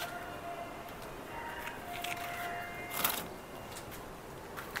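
Low background with faint steady tones, and a brief crinkle of the camphor packet's wrapper being handled about three seconds in, with a smaller rustle near the end.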